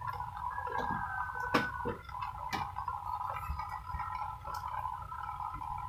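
A few sharp clicks and knocks as a flat-screen LED TV panel is handled, over a steady high whine in the background.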